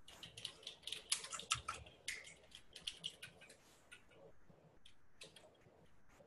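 Faint typing on a computer keyboard: an irregular run of key clicks, dense for the first few seconds and thinning to scattered taps after about four seconds.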